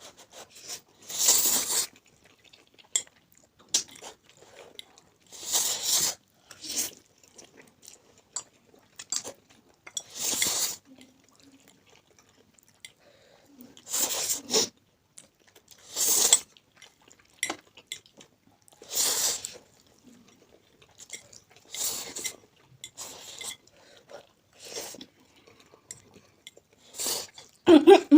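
Close-up eating of spicy instant noodles: chewing, with a noisy slurp every two to four seconds.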